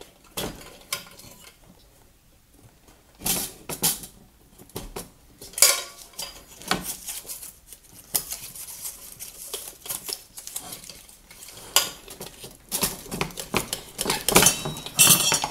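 Irregular metallic clicks, taps and scrapes as yellow nonmetallic cable is worked into the sheet-metal junction box of a remodel recessed can light, with a longer scraping rustle near the end.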